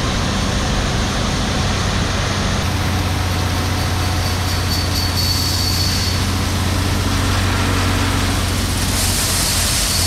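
A tractor runs steadily, driving a Brent grain cart's unloading auger while shelled corn pours from the spout into a grain trailer in a steady rush. A faint high whine joins for a couple of seconds around the middle.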